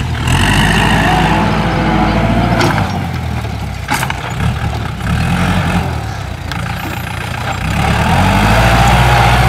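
Kubota L4708 tractor's diesel engine running steadily under load while it pulls a disc harrow through the soil. The engine grows louder and fuller near the end.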